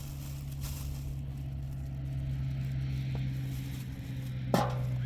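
An engine running steadily with a low hum, and a single sharp knock about four and a half seconds in.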